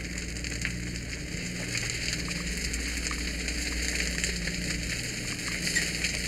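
Burning landscape mulch and palm fronds crackling and hissing, with scattered sharp pops, over a steady low drone.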